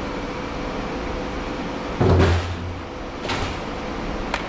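Metal equipment being handled during a teardown: a loud clunk about two seconds in, followed by a scrape and a sharp click near the end, over a steady shop hum.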